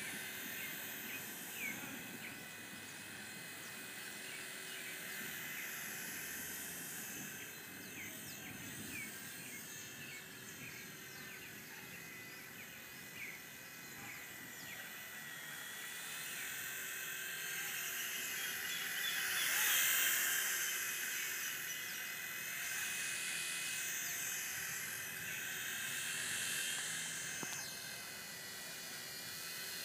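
HobbyKing FP100 micro electric RC helicopter in flight: a high-pitched motor and rotor whine whose pitch wavers up and down as it manoeuvres, growing louder about two-thirds of the way through.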